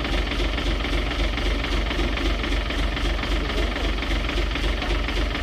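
Heavy truck's diesel engine idling steadily, with an even low throb.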